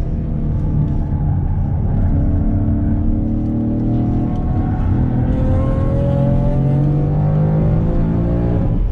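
Ford Mustang engine heard from inside the cabin, pulling hard under acceleration in second gear, its pitch climbing steadily over the second half and then dropping suddenly near the end with an upshift.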